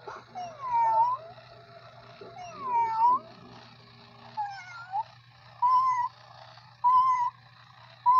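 Electronic walking toy cat playing recorded meows: about six short electronic meows, one every second or two, several identical and two longer ones that dip and rise in pitch, over a steady low hum.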